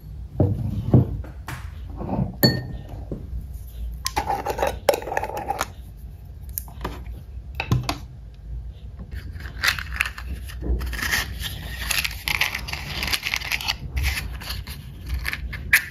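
Small objects set down and moved about on a wooden desk: several knocks, clinks and scrapes. From about ten seconds in comes a longer rustling and sliding as a cardboard matchbox is handled and opened.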